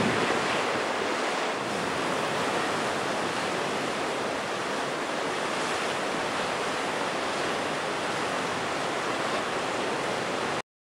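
Steady wash of ocean surf with some wind, cutting off abruptly near the end.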